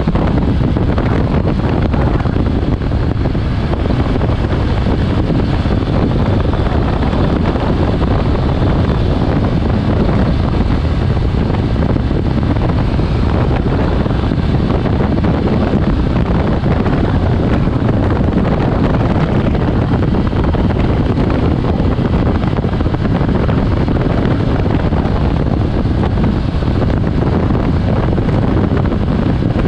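Steady heavy wind noise buffeting the microphone of a moving motorcycle, with the motorcycle's engine running underneath.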